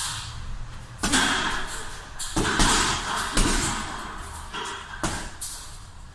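Punches landing on a hanging heavy bag: about five heavy thuds at uneven intervals, each followed by some echo from the large room.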